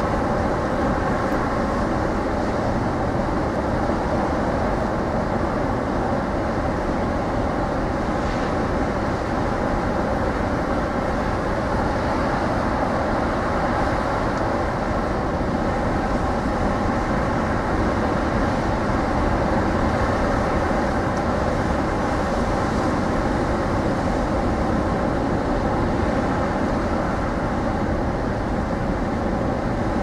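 Rough winter storm surf breaking along the beach in a steady, unbroken roar, with gusty wind rumbling on the microphone.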